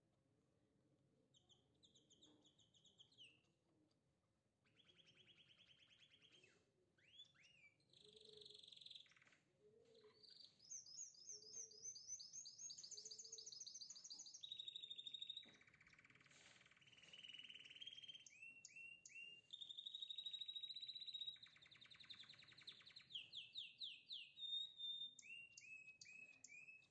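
Faint birdsong: a songbird singing long, varied phrases of high trills and fast runs of repeated chirps.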